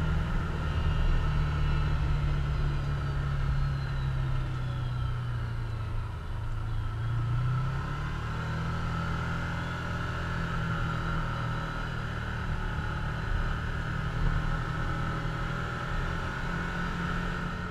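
Can-Am Commander side-by-side's engine running steadily under way, heard from the open cab, with road noise from the gravel trail. The engine note drops and then picks back up about six to eight seconds in.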